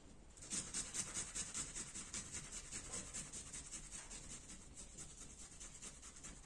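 Food being grated on a hand grater: quick, even rasping strokes, several a second, starting about half a second in and slowly getting fainter.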